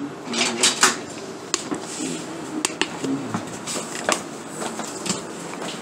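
Metal cooking utensils clinking and knocking against pots and pans: a few sharp separate clinks, the loudest about a second in, then scattered lighter knocks.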